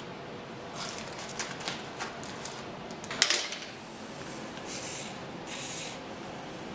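Small metal tools clinking on a steel table, with a sharp clatter a little over three seconds in, then two short hisses from a WD-40 aerosol can sprayed through its straw, lubricating for tapping threads in aluminium.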